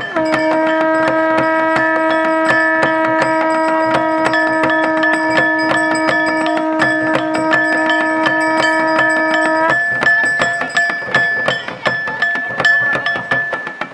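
Conch shell (shankh) blown in one long steady note lasting about nine and a half seconds, over continuous dhol and damau drumming and a steady metallic ringing. After the conch stops, the drumming and ringing carry on.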